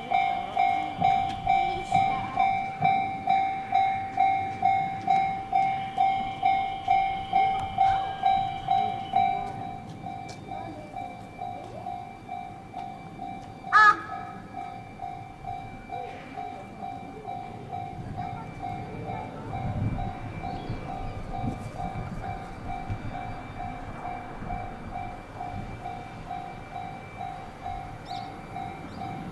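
Japanese level-crossing alarm ringing its repeating electronic clang at about two strikes a second, loud for the first ten seconds and then quieter as it carries on. About halfway through there is a brief sharp horn toot, and a passing train's rumble rises and stays under the alarm to the end.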